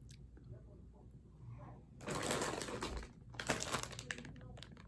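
Plastic candy wrapper crinkling as it is handled, in two rustling bursts about two seconds in and again about three and a half seconds in, with small clicks between.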